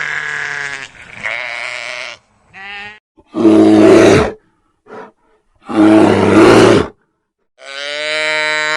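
A string of separate farm animal calls with short silences between them: two loud, harsh calls in the middle and a steadier pitched call near the end.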